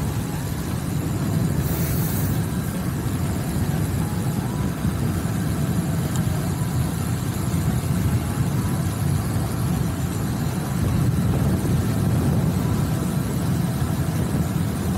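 Wind rumbling steadily over the camera's microphone as the bicycle rides along at speed, with a brief hiss about two seconds in.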